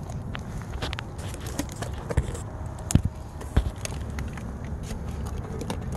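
A series of light knocks and clicks as a camp-stove windscreen is handled and set up around a small stove, over a steady low rumble of wind on the microphone.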